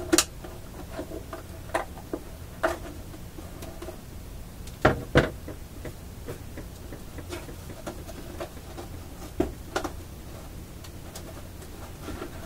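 Irregular clicks and knocks of hands and a tool working on a vacuum-tube radio's loop antenna frame of heavy cardboard and wood while it is taken apart, with two louder knocks close together about five seconds in.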